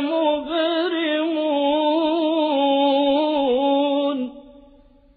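Male Quran reciter chanting in a melodic, drawn-out style, holding one long wavering note that ends about four seconds in.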